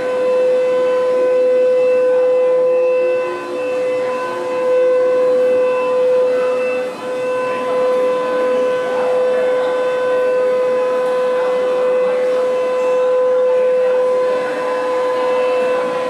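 Walt Disney World monorail heard from inside the cabin while moving: a loud, steady electric whine that holds one pitch throughout, over a low running noise.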